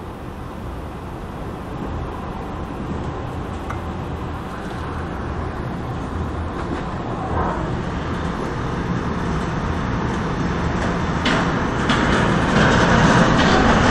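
Tornado wind and heavy rain: a steady rushing noise that swells louder over the seconds, with a few faint knocks in the second half.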